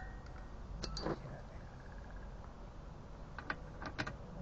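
A few light clicks and clinks, a pair about a second in and several more around three and a half to four seconds, from tools and metal parts being handled while swapping an outboard motor's propeller.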